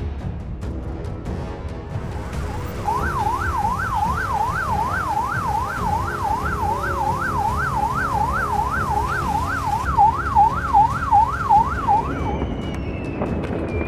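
An emergency-vehicle siren in fast yelp mode, sweeping up and down about two and a half times a second for roughly nine seconds over a steady low rumble. About ten seconds in, six loud pulses follow in quick succession.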